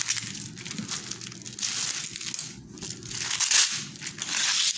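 Plastic cling film crinkling and rustling as it is handled and stretched over a container, in uneven swells.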